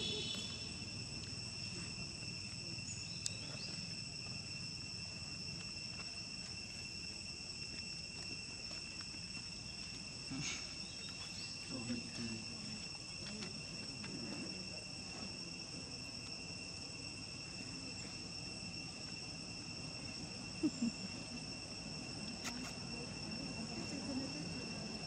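Steady, high-pitched drone of insects in the surrounding forest, holding two even pitches, with a few faint clicks.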